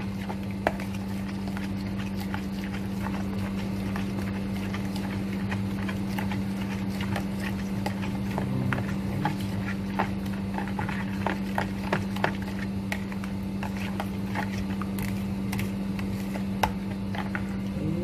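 Metal spoon stirring a thick flour dough in a bowl, with irregular clicks and taps of the spoon against the bowl, over a steady low hum.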